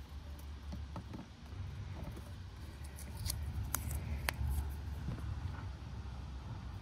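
Low wind rumble on the microphone, with a few small clicks and rustles as fingers handle and peel a small adhesive mounting pad.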